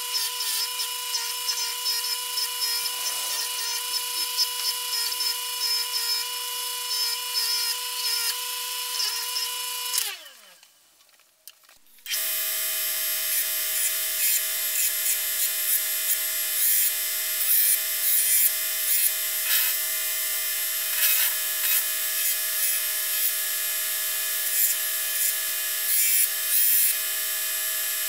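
Bench grinder running while a rusty steel hatchet head is worked against its wheel, a steady whine with scratchy grinding. About ten seconds in it cuts off, and after a short quiet a belt grinder runs with a different steady whine, with scraping and ticking as the head meets the belt.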